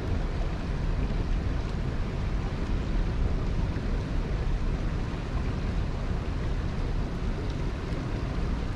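Steady rush of high water at a spillway, mixed with a low rumble of wind buffeting the microphone.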